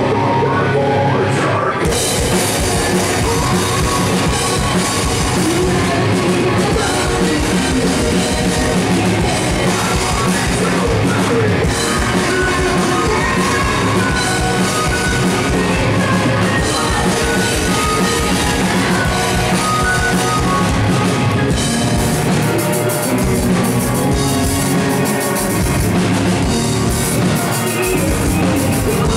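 A post-hardcore band playing live and loud: electric guitars, bass and a drum kit, with a vocalist shouting into the microphone. The full band comes in about two seconds in.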